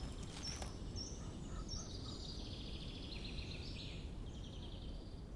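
Songbirds calling: short high chirps about every half second, then a rapid trill of quick repeated notes, over a steady low outdoor rumble. There are a couple of footsteps in the first second.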